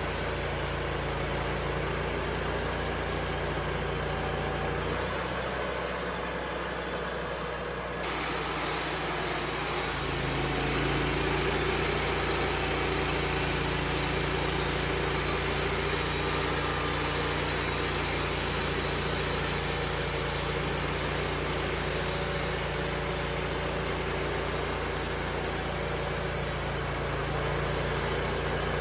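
Wood-Mizer LT35HD sawmill running steadily with the engine's steady hum. Its sound changes for a few seconds, starting about five seconds in, then settles back.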